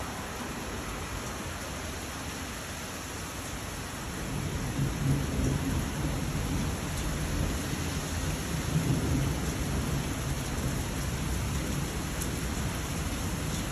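Steady hiss of heavy rain and rushing floodwater, with a low rumbling that swells from about four seconds in.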